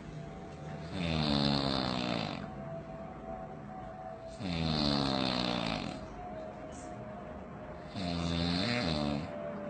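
A man snoring: three long snores about three and a half seconds apart, the last one breaking in two.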